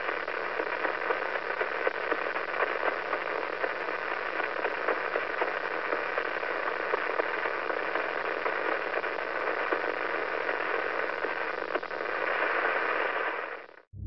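Radio signal of pulsar PSR 0950+08 turned into sound: a steady hiss of radio static thick with faint clicks over a low steady hum, the pulsar spinning once every 0.253 seconds. It cuts off suddenly near the end.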